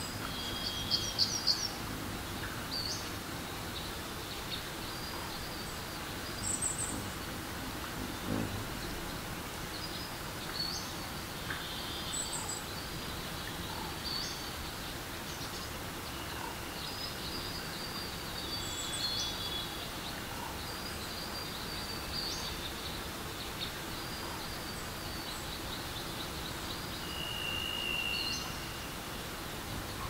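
Steady rush of flowing water under many birds chirping and whistling: short high calls throughout, a flurry of quick notes about a second in, and a longer steady whistle near the end.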